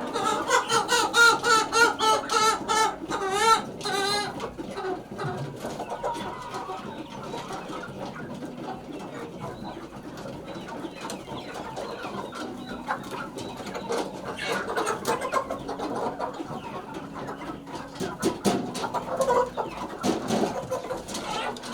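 A flock of chickens clucking, loudest over the first few seconds and then carrying on more quietly.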